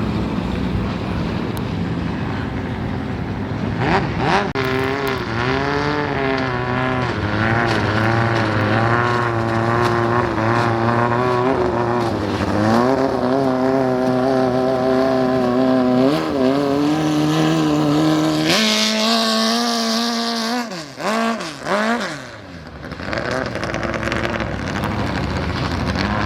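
Racing speedboat engines running hard, their pitch wavering and shifting as the throttle changes. About 19 seconds in the sound changes abruptly, and a couple of sweeps then drop in pitch, as a boat passes by.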